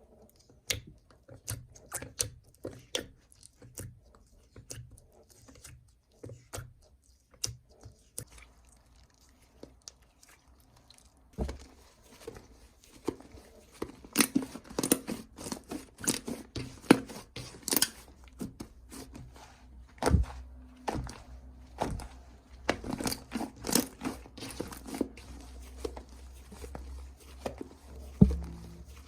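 Hands squeezing and working slime mixed with beads, giving irregular crackling, popping and crunching clicks. They grow denser and louder about twelve seconds in.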